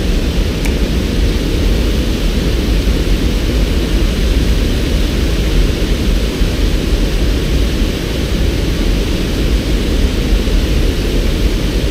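Water pouring over a low-head river dam, heard close by from below it: a steady low rumble.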